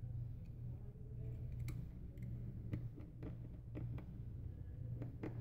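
Scattered small clicks and taps of a precision screwdriver and fingertips on an opened iPhone 6 as the battery bracket screws go back in, over a steady low hum.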